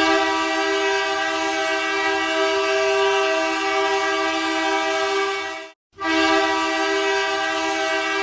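Ice hockey arena goal horn blasting a steady, low two-tone chord. One long blast of about five and a half seconds stops abruptly, and a second blast starts about half a second later.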